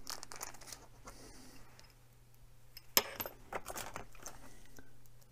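Small clicks and taps of hands handling small hardware and tools at a workbench, such as picking a tiny screw from a plastic parts container. One sharper click about three seconds in, followed by a few lighter ticks.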